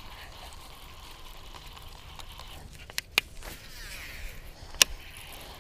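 A Lew's baitcasting reel is worked through fast casts and retrieves: a few sharp clicks, two about three seconds in and one near the end, over a low steady hiss.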